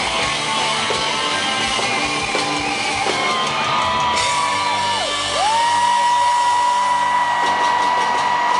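A live country-rock band playing loudly, with guitars to the fore. An electric guitar holds long high notes that dip sharply in pitch and bend back up around the middle, then sustains one long note through the second half.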